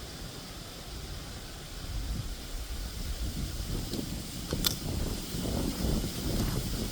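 Wind buffeting the microphone as a low, uneven rumble that grows louder about two seconds in. One sharp click or crack comes about two-thirds of the way through.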